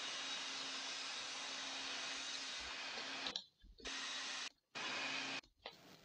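Steady hiss and crackle of an electric welding arc, with a faint hum under it. It cuts out briefly three times in the second half, then carries on quieter.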